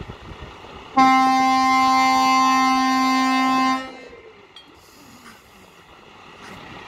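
Truck air horn sounding one long, steady blast of about three seconds, dropping in pitch as it cuts off.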